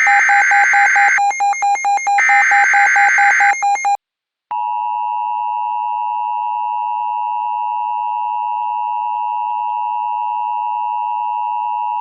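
Emergency Alert System tones: two bursts of rapid, chattering SAME header data, each about a second and a half long, then after a short gap the steady two-tone EAS attention signal, held for about eight seconds and cut off abruptly. Together they open a new alert and precede the spoken emergency message.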